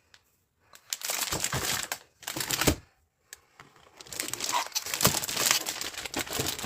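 Packaging crinkling and rustling as the contents of a collectors' box are handled, in a few bursts, then near-continuously through the second half.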